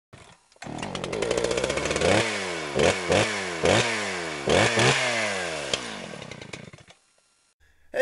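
Small gasoline engine starting up and then revved in about six quick blips, its pitch dropping back after each one, before the sound fades out.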